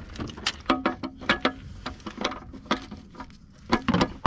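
Irregular metallic clicks and clinks of a size 21 socket and breaker bar working on the sump plug of a Peugeot 1.6 HDI engine, being turned anti-clockwise to crack the plug loose.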